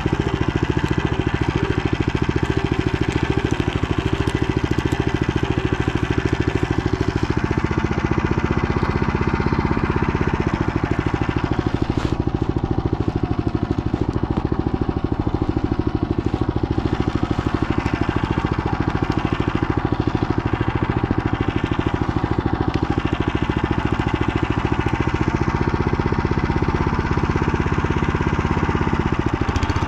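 Motor Sich walk-behind tractor's engine running steadily as the machine drives along. Its note shifts for a couple of seconds about a quarter of the way in and again near the end.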